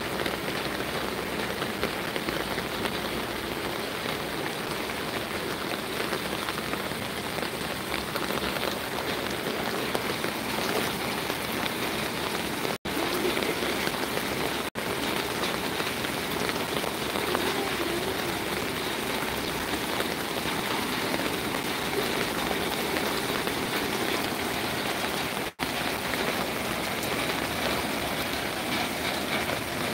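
Steady rain falling on an open umbrella held just above the phone. The sound cuts out briefly three times.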